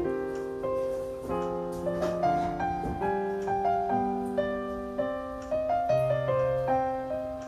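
Background piano music: a tune of short, separate notes in a steady run.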